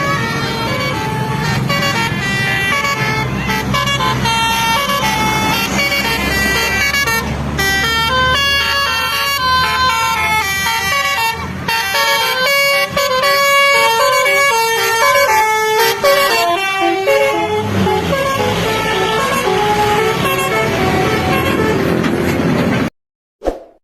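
Bus basuri (telolet) multi-trumpet musical air horn playing a fast run of notes that step from pitch to pitch in a melody, over the bus engine's low rumble. It cuts off abruptly near the end.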